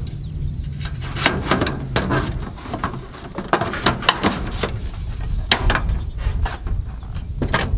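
A piece of steel roof trim being slid and fitted against the wooden fascia and steel siding: irregular light taps, clicks and scrapes of metal on wood and metal, over a steady low rumble.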